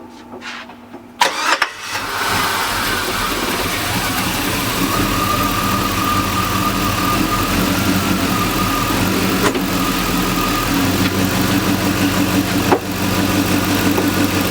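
LS V8 engine in a box Chevy Caprice cranking and catching about a second in, then idling steadily. A couple of sharp clicks come later on.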